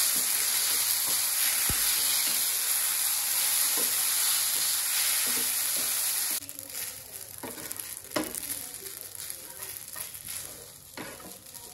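Spaghetti sizzling in oil in a frying pan as it is stirred with a wooden spatula. About six seconds in, the sizzle drops away abruptly, leaving softer scrapes and taps of the spatula in the pan.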